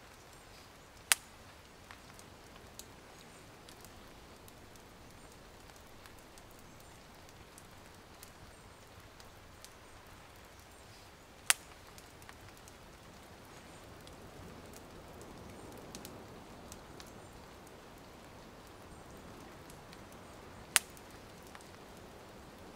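Light rain and a small crackling campfire: a soft steady hiss with scattered faint ticks, broken by three sharp, loud cracks about ten seconds apart.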